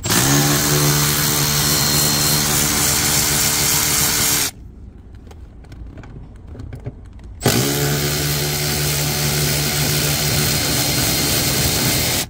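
A power tool with a T50 Torx bit runs twice, about four and a half seconds each time, with a short pause between, backing out the front seat bolts. The motor holds a steady pitch after a brief spin-up at the start of each run.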